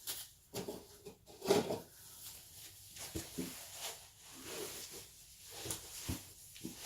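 Handling noise from tools and gear being picked up and set down: a few light knocks and clicks, the loudest about a second and a half in, with some rustling in between.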